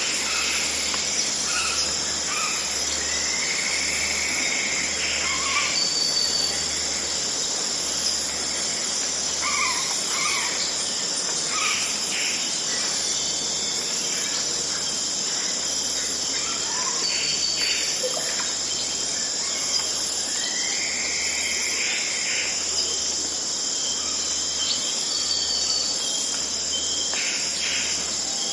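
Tropical rainforest dawn ambience: a steady high-pitched chorus of insects, with scattered bird calls and a few longer whistled glides over it.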